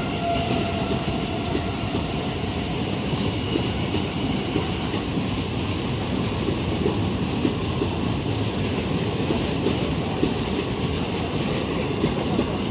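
Passenger train's coaches rolling past as it pulls out of the station: a steady rumble with wheel clatter on the rails.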